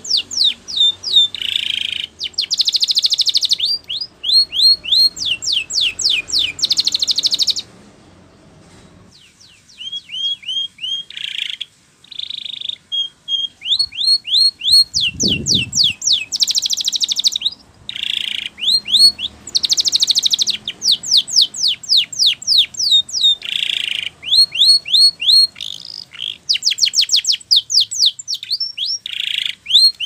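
Domestic canary singing: long runs of rapid, repeated falling whistled notes broken up by rattling buzzy rolls, with a short pause about eight seconds in. A low thump about fifteen seconds in.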